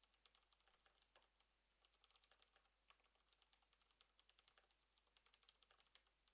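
Faint, quick keystrokes on a computer keyboard as a sentence is typed, coming in bursts with short pauses.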